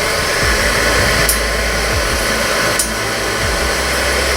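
Forge running with a steady rushing air noise and a low hum underneath, with two faint sharp ticks about a second and a half apart.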